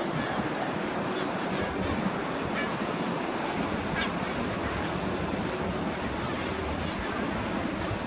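Steady wash of sea surf on a rocky shore, with wind noise on the microphone. A few faint, brief high sounds sit over it.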